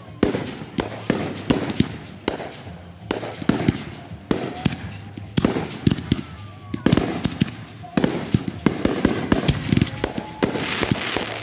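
Consumer fireworks going off: a string of sharp bangs from aerial shells bursting, about one or two a second, over the hiss of a ground fountain. Near the end the bursts run together into a dense crackle.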